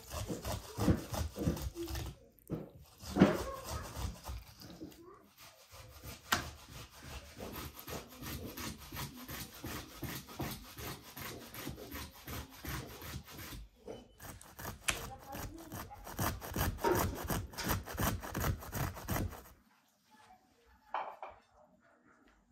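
Hand grater shredding a raw vegetable in rapid rasping strokes that stop a little over three-quarters of the way through, with a few louder knocks in the first seconds.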